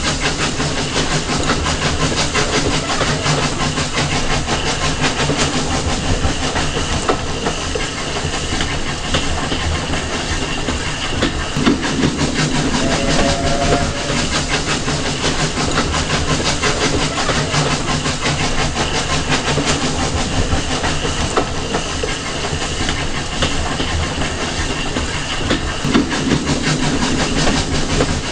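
Steam-hauled passenger train running along the line, heard from an open carriage window: a steady rumble and rush with the wheels clattering over the rail joints.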